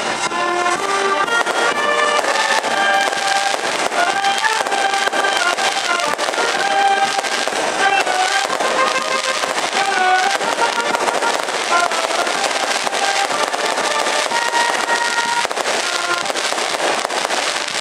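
A marching band of brass and woodwinds playing a melody over a continuous rapid crackle of firecrackers going off.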